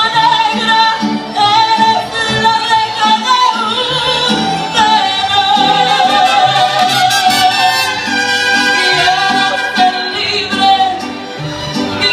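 A woman sings a ranchera into a microphone with a wide vibrato, backed by a live mariachi group with violins and low bass notes pulsing in a steady rhythm.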